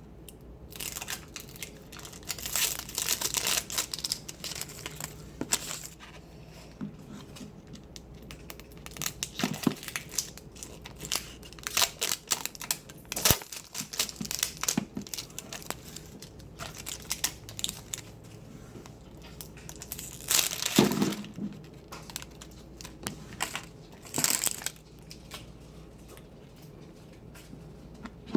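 Plastic doll packaging being crinkled, crushed and torn open by hand in irregular bursts, with small clicks and rustles, loudest about two-thirds of the way through.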